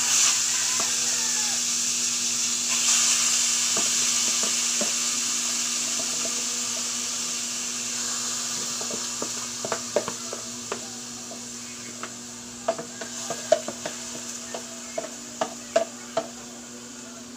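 Marinated bite-size pork pieces hitting hot cooking oil in a pan: a loud sizzle that starts all at once and slowly dies down. In the second half a wooden spatula stirring the meat knocks and scrapes against the pan in sharp clicks.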